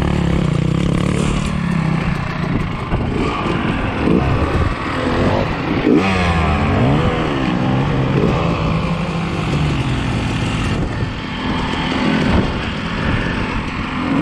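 Yamaha YZ250 two-stroke single-cylinder dirt bike engine under hard riding, its pitch rising and falling again and again as the throttle opens and closes.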